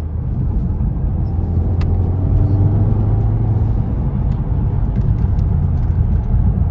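2017 VW Golf R's turbocharged EA888 four-cylinder driving on the road, a steady low drone of engine and road noise that swells briefly and rises a little about two seconds in. The engine is running rough with a cylinder 3 misfire after the Stage 1 tune flash, breaking up under load.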